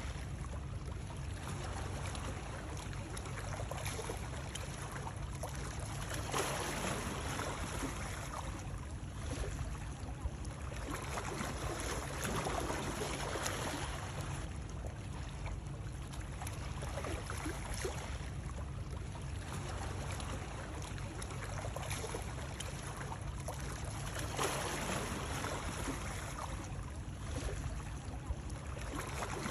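Continuous water noise over a steady low rumble, swelling and ebbing every two to four seconds.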